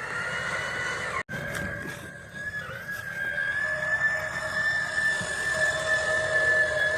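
A motor vehicle running with a steady high whine over engine noise, broken off briefly about a second in.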